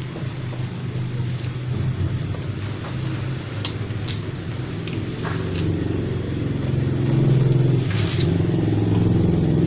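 A rubber inner tube being worked by hand into a motorcycle tyre on a spoked rim, giving a few short crackles and rustles, over a steady low drone of a motor running, which grows a little louder after about seven seconds.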